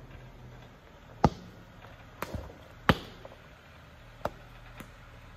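Jeep Wrangler crawling slowly down a rock ledge: a low steady engine rumble with a handful of sharp knocks, the loudest about a second in and just under three seconds in, as the tires and chassis come down over the rocks.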